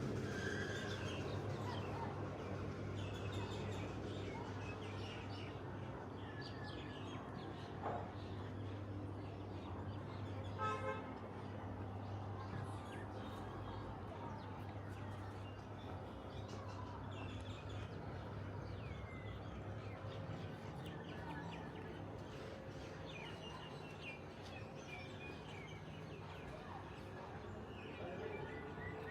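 Old-town street ambience: birds chirping over a steady low hum of traffic, with one brief horn toot about a third of the way through.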